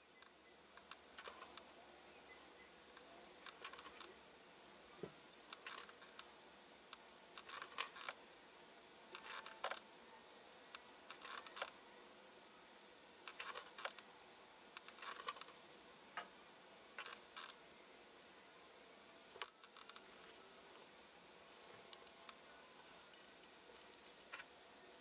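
Faint, sharp little clicks and ticks about every two seconds, over a quiet room hiss: needle-nose pliers bending the wire leads of resistors, and the bent resistors being laid down on the workbench.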